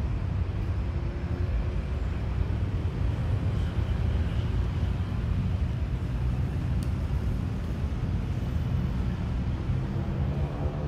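Steady city street traffic noise: a continuous low rumble of vehicles on the road.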